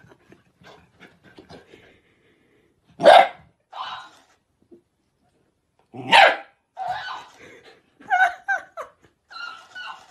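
A dog barking sharply twice, about three seconds apart, each bark answered a moment later by a talking-hamster toy's quieter, squeakier playback of it. A run of shorter barks and replays follows near the end.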